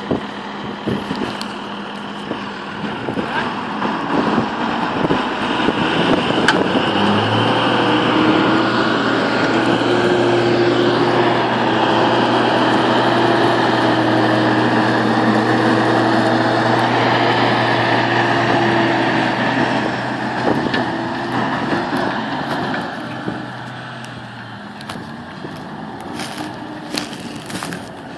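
Fendt 716 Vario tractor's diesel engine working hard under load, its wheels sunk in mud with a disc harrow behind. The revs rise about seven seconds in, hold steady, then drop away about three-quarters of the way through.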